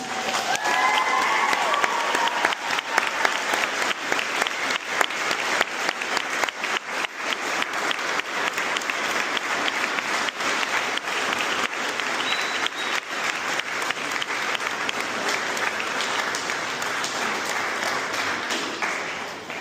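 A crowd of guests clapping steadily, with a few whoops about a second in and once more partway through; the applause dies away near the end.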